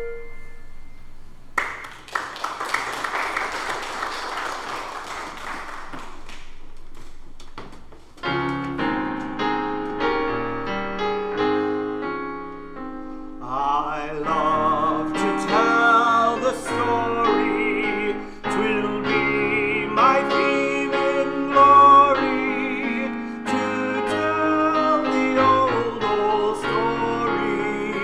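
Handbell choir playing, sharply struck ringing bell notes with wavering tremolo tones, over keyboard accompaniment; the piece starts about eight seconds in. Before it, ringing notes die away and a few seconds of noisy rustle follow.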